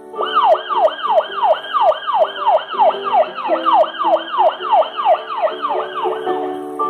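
Police car siren in its fast yelp mode: a quick rising-and-falling wail repeating about three times a second, which stops shortly before the end. Faint background music runs underneath.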